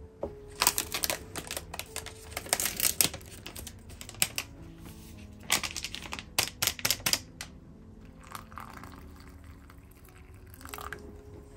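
Paper soup packet crinkling and tapping in two quick bursts as its powder is shaken into a ceramic bowl, then water poured into the bowl from a kettle near the end. Soft background music underneath.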